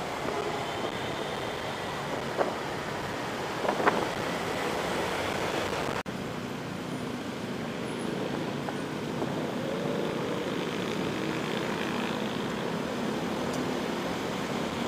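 Riding noise from a moving Honda Click 125i scooter in city traffic: a steady rush of wind, road and engine sound. There are a couple of brief knocks in the first four seconds and a momentary drop-out about six seconds in.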